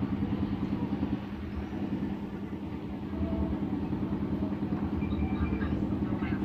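Single-cylinder diesel engine (a "dompeng") running a generator, a steady fast, even chugging.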